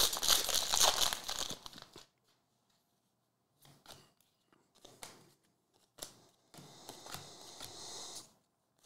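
Foil wrapper of a Bowman Draft trading-card pack being torn open and crinkled, loud for about the first two seconds. Then a few faint clicks and soft rustles as the stack of cards is handled.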